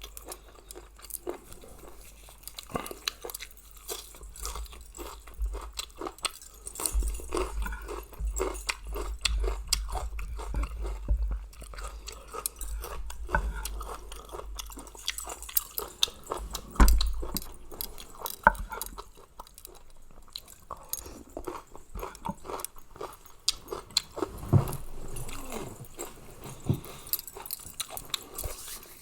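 A person chewing and biting into a spicy pounded mixed-seafood salad, with many small irregular crunching clicks.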